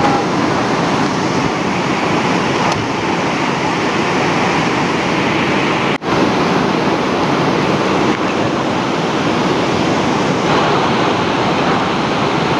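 Rushing river water: a steady, loud rush that breaks off for an instant about six seconds in.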